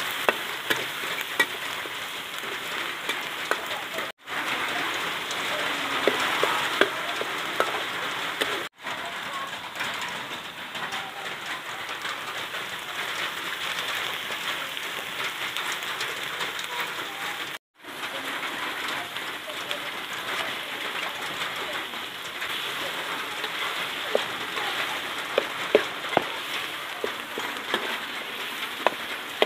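A minced prahok and chili mixture frying in oil in a metal wok: a steady crackling sizzle, with sharp scrapes and taps of the spatula against the pan, more of them near the end. The sound cuts out briefly three times.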